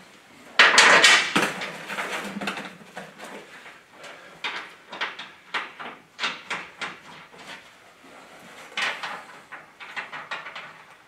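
Metal clinks and rattles of steel bolts, nuts and washers being handled and pushed through the holes of a truck chassis crossmember. A louder scraping rattle comes about half a second in and lasts about a second, followed by scattered irregular clinks and knocks.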